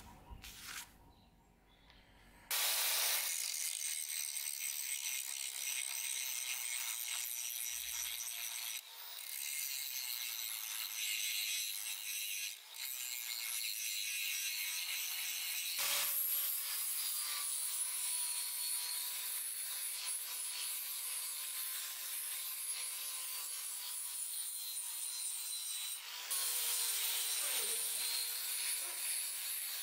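Angle grinder with an abrasive disc grinding a steel axe head: a steady, high hiss of disc on steel over the motor's whine. It starts about two and a half seconds in and drops off briefly a few times as the disc is lifted or repositioned.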